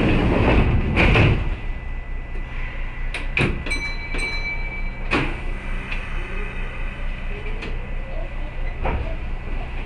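Train's sliding doors closing with a rush of air and clunks, then scattered clicks and two short electronic beeps about four seconds in, over the steady hum of the stationary train.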